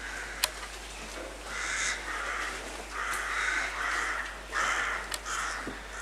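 Crows cawing in alarm: a run of harsh caws, each about half a second long, from about a second and a half in until just after five seconds. The birds are stirred up by a shot just fired among them.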